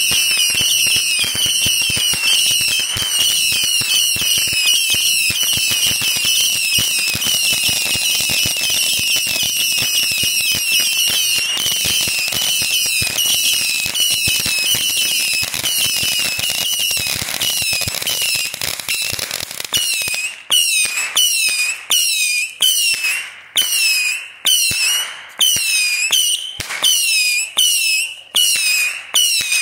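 Ground-fired consumer fireworks going off. For about twenty seconds there is dense crackling under many overlapping shrill whistles. Then come separate whistling shots about once a second, each a sharp pop followed by a whistle that falls in pitch.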